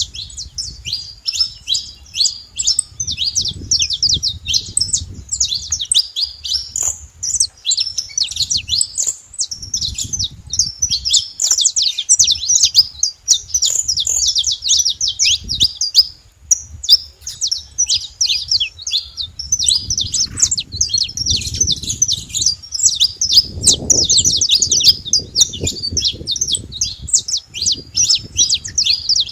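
Saffron finch singing: long, fast runs of high chirping notes, nearly unbroken, with a short pause about halfway through. A low rumble comes and goes underneath.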